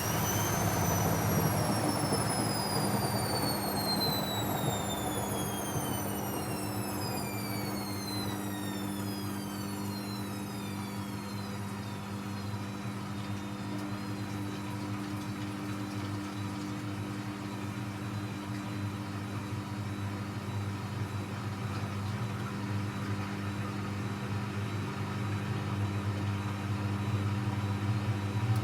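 Techwood WB 91042I washing machine's drum motor whining as the drum coasts down from a short spin, the whine falling steadily in pitch over about ten seconds. A steady low hum runs underneath.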